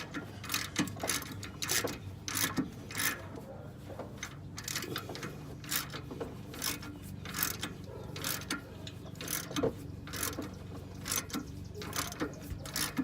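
Ratchet wrench clicking in short repeated strokes as a large greasy bolt is backed out.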